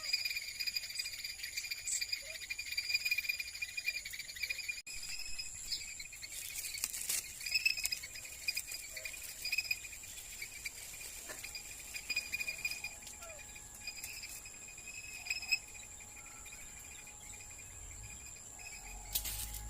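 Steady insect chorus, a continuous high chirping at a few fixed pitches, with scattered faint clicks and rustles.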